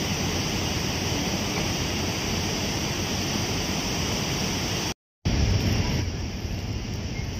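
Steady rushing of a lahar, a fast flood of volcanic mud, sand and rocks pouring down a river channel. The sound cuts out for a moment about five seconds in and comes back with a heavier low rumble.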